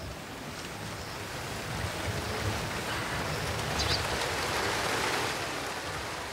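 Wind gusting through banana plants, their large leaves rustling. The rustle slowly swells to a peak a few seconds in, then eases off near the end.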